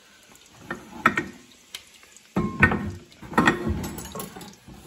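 Kitchen dishes and utensils knocked and slid about on a granite countertop: several separate clatters and knocks about a second apart, the loudest a little past the middle.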